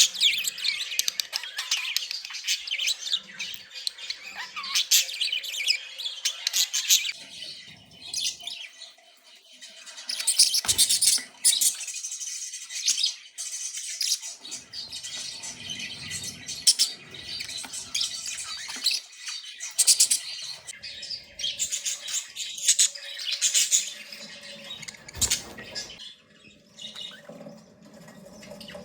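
Budgerigars chattering, a rapid run of high warbles and sharp chirps that comes in bursts with short, quieter lulls.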